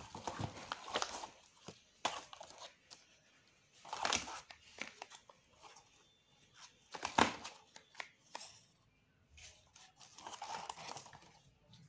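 Cardboard box and small paper product cartons being handled: quiet, intermittent rustling, scraping and light taps, with two louder handling noises about 4 and 7 seconds in.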